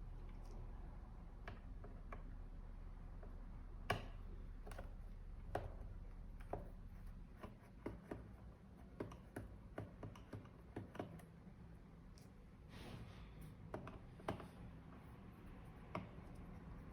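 Scattered light clicks and taps of hands handling a laptop and small tools, over a low hum that fades about seven seconds in.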